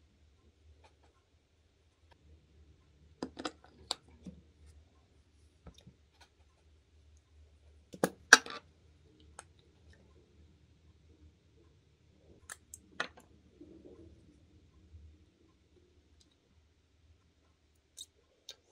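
Cosmetic bottles, jars and caps clicking and knocking against a glass tabletop as they are picked up and set down, in a few short clusters with the loudest about eight seconds in, and soft rustling between.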